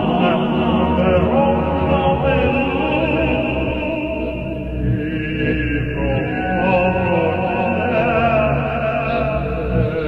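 Slowed-down old dance-band record: sustained, wavering notes stacked in dense layers, with a dull, muffled top end and nothing bright above it.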